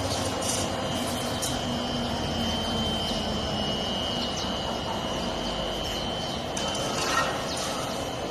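V-blender powder mixer running: a steady mechanical noise with a thin, high, steady whine and a few clicks about seven seconds in.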